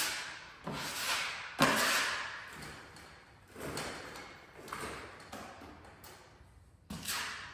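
Drywall ceiling being hand-sanded with a sanding block: a few sharp scraping strokes that fade away, the loudest about one and a half seconds in, then fainter scrapes and rubs.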